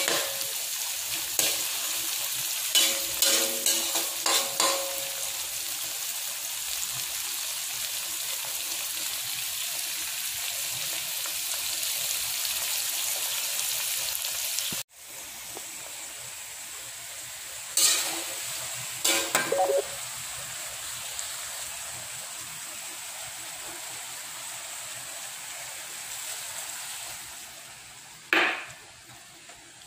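Oil sizzling steadily in a wok as garlic, onion and tomato fry, with a spatula scraping and stirring the pan in short bursts of strokes. The sizzle drops after a cut about halfway and again near the end.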